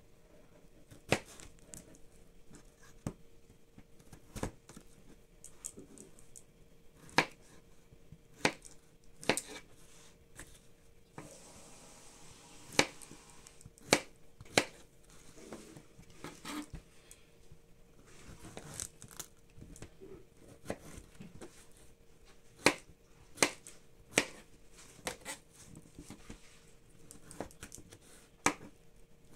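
Kitchen knife cutting a Mexican squash on a plastic cutting board: irregular sharp knocks of the blade striking the board, roughly one every second or so.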